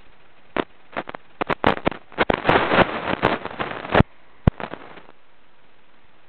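Close handling noise: a hand moving small plastic Lego bricks and brushing the camera makes a run of sharp clicks and scuffing rustles for about three and a half seconds, then one last click.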